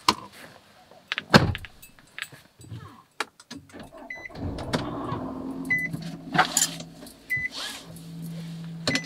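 A car door shuts with a loud thump, then the car's engine starts and settles into a steady idle. A warning chime beeps three times, about a second and a half apart, among clicks and knocks from the driver settling in.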